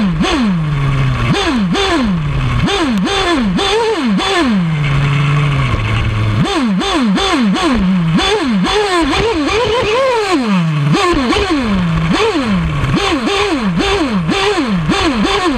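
Nova P5 Limited nitro glow engine on an RC car, heard up close from the car, revving up and down in quick throttle bursts as it drives. Three times it drops on a longer let-off to a low idle before picking up again. The chassis and tyres clatter over the rough ground.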